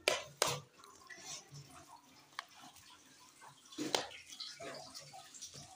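A metal spoon stirring and scooping through kadhi in a plate: soft wet sloshing with a few short clicks of the spoon against the plate, the loudest about four seconds in.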